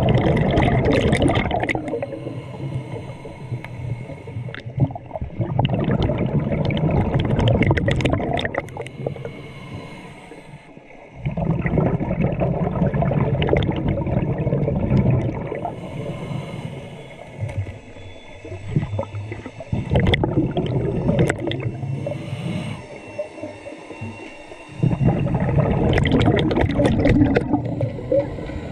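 Scuba diver breathing through a regulator underwater: about five long, bubbling bursts of exhaled air, with quieter stretches between them.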